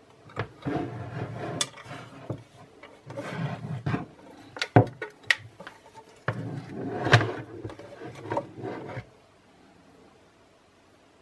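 Hand-handling noises of the bench grinder and its packaging: irregular rubbing and scraping with sharp clicks and knocks, stopping about nine seconds in.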